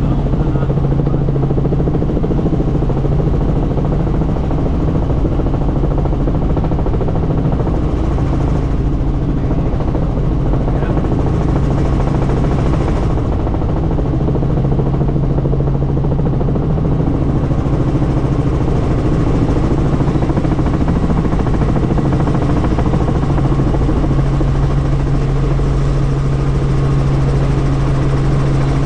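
Helicopter in flight heard from inside the doors-off cabin: a loud, steady engine and rotor drone with a strong low hum, over rushing air noise.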